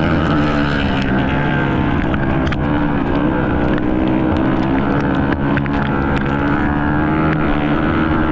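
Ice-racing motorcycle engine running hard at high revs, heard on board, its pitch drifting a little up and down, with scattered sharp clicks over it.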